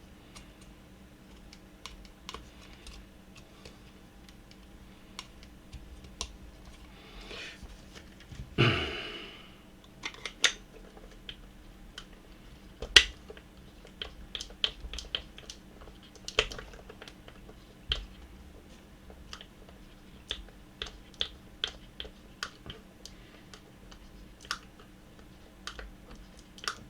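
Irregular small clicks and taps of plastic and metal parts of a coffee grinder being handled and worked on by hand, with one louder scraping sound about eight seconds in.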